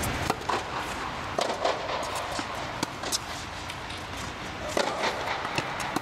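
Tennis ball struck by rackets and bouncing on a hard court during a serve and rally: sharp knocks, the first about a third of a second in, then several more spaced unevenly through the rest.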